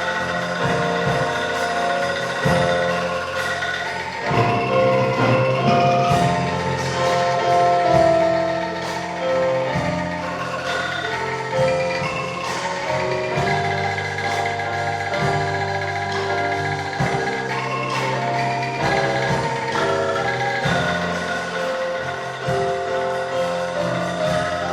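Angklung ensemble playing a tune: shaken bamboo tubes sounding held, rattling notes and chords over lower notes.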